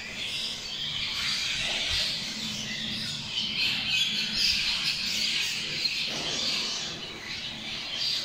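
A large flock of small birds roosting on the steel roof trusses, chattering constantly, with many overlapping chirps and squawks blending into a steady twittering din.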